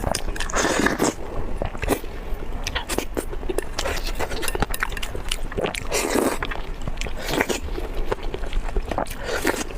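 Close-miked eating sounds: a person biting and chewing food, with a dense run of wet mouth clicks and a few longer swells.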